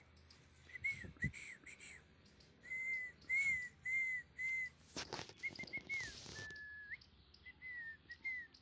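Runs of short, high whistled notes, each rising and falling, repeated a few times a second, with one longer held note about six seconds in. A sharp knock comes about five seconds in.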